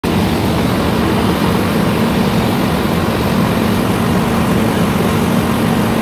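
Rice combine harvester running steadily while it cuts, its engine and cutting machinery heard close up from the machine.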